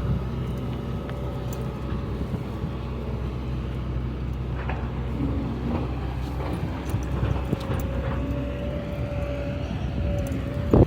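Steady low mechanical hum with a faint held tone above it, like a motor or engine running, and a few faint clicks.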